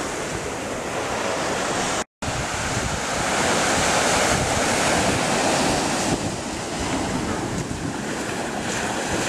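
Ocean surf washing onto a sandy beach, mixed with wind buffeting the microphone, as a steady rushing noise. The sound cuts out completely for an instant about two seconds in.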